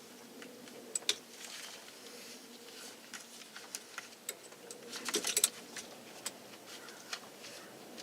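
Light clicks and small rattles of steering column parts and wiring being handled, with two sharper clicks about a second in and a quick cluster of clicks about five seconds in.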